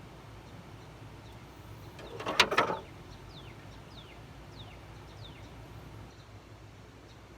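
A short clatter of several knocks about two seconds in, followed by a small bird calling with a run of quick, high, downward-sliding notes.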